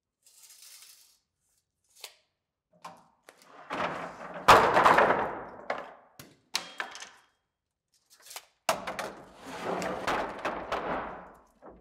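Long rough-sawn white oak boards being pulled from a lumber stack, sliding and scraping over the boards beneath and knocking against them. The loudest is a sharp wooden clunk about four and a half seconds in, and a long scraping slide comes near the end.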